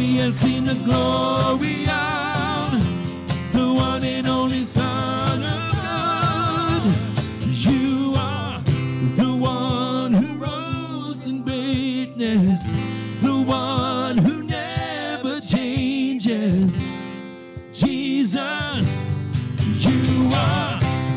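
Live worship band playing a slow worship song: strummed acoustic guitar and keyboard under male and female voices singing with vibrato. The music briefly thins out about seventeen seconds in, then comes back in full.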